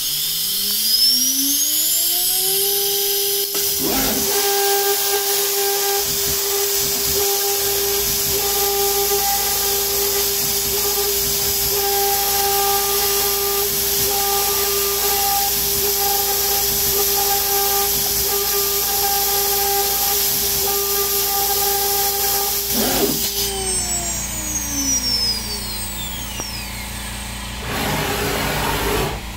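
CNC router spindle spinning up with a rising whine, holding a steady high whine while a 1/32 in two-flute ball end mill engraves an aluminium plate, then winding down with a falling whine near the end. A steady hiss from the mist coolant nozzle runs underneath.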